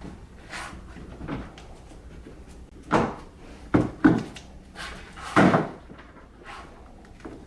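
A few dull knocks and thumps of widebody kit body parts being handled and set in place, irregular and spaced out, the loudest a little past halfway.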